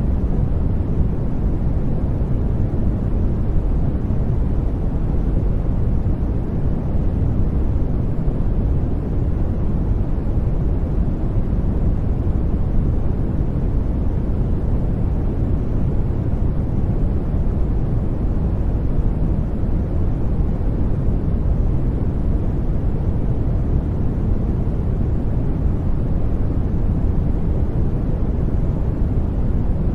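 Steady generated noise, heavy in the low end like a deep, even rushing rumble. It is sleep-and-focus noise, labelled white noise, but it sounds deeper and darker than true white noise.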